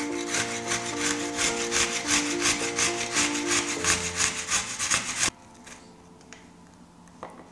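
A garlic clove rasped quickly up and down a small stainless-steel box grater, about six scraping strokes a second. The scraping stops abruptly about five seconds in.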